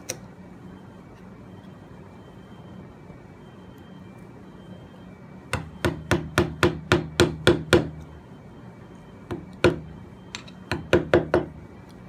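Hammer striking a chisel driven into hardwood: one blow at the start, then a quick run of about ten blows, roughly four a second, and after a pause two more and a short run of about five.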